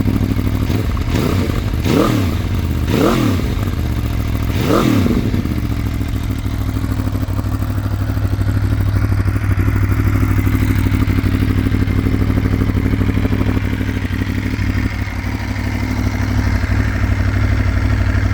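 2016 Aprilia Tuono V4 Factory's V4 engine, breathing through a full Akrapovič racing exhaust, blipped a few times with quick rises and falls in revs in the first five seconds. It then settles back to a steady idle.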